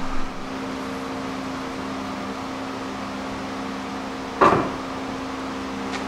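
A single sharp knock about four and a half seconds in as the steel G-Force transmission crossmember is lifted into place against the truck's frame, over a steady low hum.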